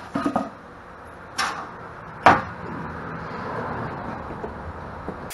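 Wooden knocks and clunks as a golf cart engine is handled inside its wooden shipping crate, with a few light knocks at the start and a sharp, loud knock a little over two seconds in, followed by a steady low rushing noise.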